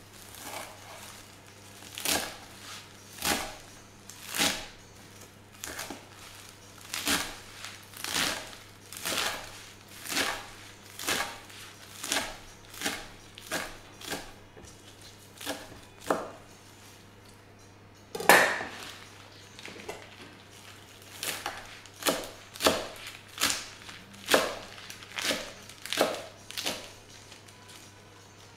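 Kitchen knife chopping a pile of fresh leafy wild herbs on a wooden cutting board, about two cuts a second. The cutting pauses briefly about two-thirds of the way through, then resumes with one sharper, louder cut.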